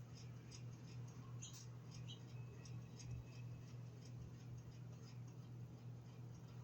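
Small birds, sparrows and finches, chirping faintly in short high notes several times a second, over a steady low hum.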